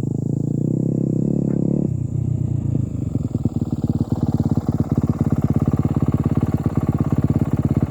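Motocross bike engine held at high revs, dropping at about two seconds in, then running on with a loud, even pulsing.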